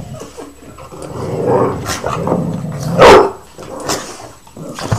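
Dogs growling as they play-fight, with one loud bark about three seconds in.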